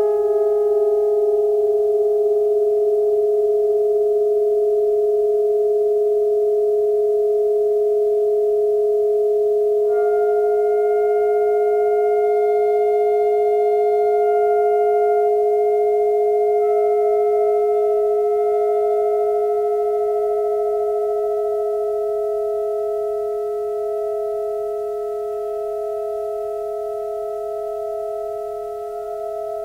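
Just-intonation drone music for saxophone quartet and electronics: a chord of long, steadily held pure-sounding pitches, two low tones sustained throughout, with higher tones entering about a third of the way in and again a little later, and a slight fade near the end.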